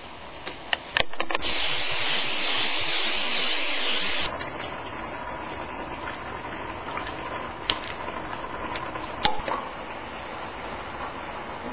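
A loud, even hiss that starts and stops abruptly and lasts about three seconds, then quieter kitchen handling noise with a few sharp clinks of utensils or cookware.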